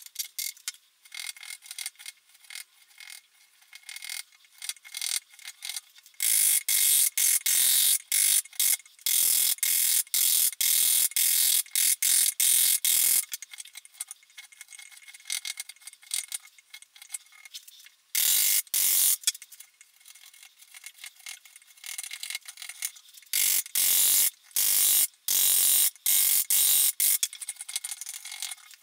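Hand file working the wooden guitar neck: runs of quick back-and-forth rasping strokes, several seconds at a time, with quieter scraping between the runs. This is the rough shaping of the neck's heel and headstock transitions.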